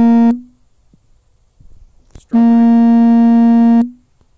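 Two loud, steady electronic buzzer tones, each one held pitch that starts and stops abruptly. The first cuts off just after the start, and a second lasting about a second and a half sounds about two seconds later.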